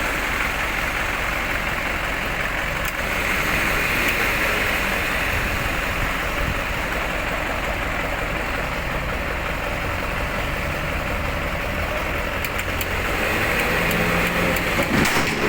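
Motor vehicle engine running steadily, with a constant hiss of engine and road noise.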